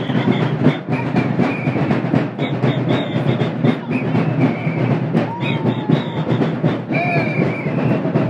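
Live street drumming in the Cape Verdean São João (Kola San Jon) style: big drums beating a dense, steady rhythm, with short high tones sounding over it.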